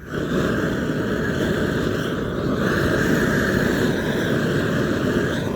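Gas torch burning steadily while heating a trowel for resealing a torch-on bitumen membrane overlap, growing slightly louder about halfway through.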